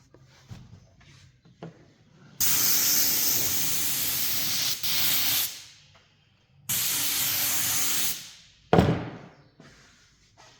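Two long hissing sprays, the first about three seconds and the second about a second and a half, then a short, sharp burst near the end that dies away quickly.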